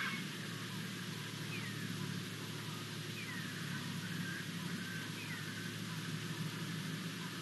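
Four or five short, high animal calls, each sliding down in pitch, spaced a second or so apart over a steady low hum.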